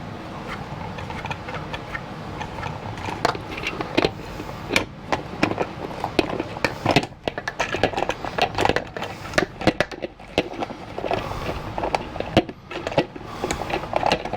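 Irregular plastic clicking and rattling as a threaded piece is turned by hand and spun down onto a plastic soda bottle, with the 3D-printed feeder parts knocking as they are handled. The clicks start thin and grow dense from a few seconds in.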